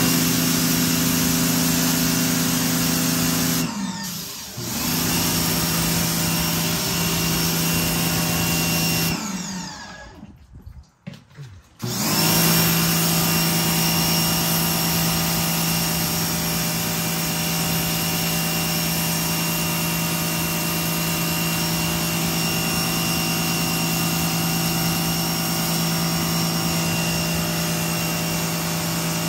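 Pressure washer running, a steady motor hum over the hiss of the water jet. It dips briefly about four seconds in, then cuts out for a couple of seconds around ten seconds in, its pitch sliding down as it stops, before starting up again. Loud, but it does not hurt the dog.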